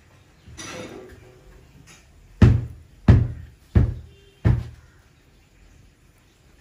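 Four loud, sudden thumps in an even rhythm about two-thirds of a second apart, each with a deep boom and a short fading tail, after a softer rustle.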